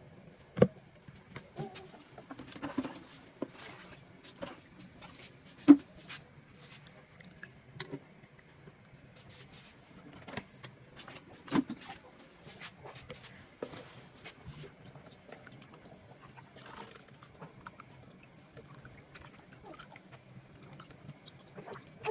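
Scattered knocks and clinks of objects being handled, a few louder ones about half a second, six and eleven seconds in with a short ring, over a faint low hum.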